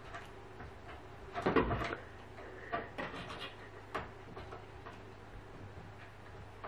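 A cat scrambling on the top edge of an open wooden door: the door knocks and rattles under it in a cluster about a second and a half in, followed by a few lighter taps and clicks of claws and paws on the wood.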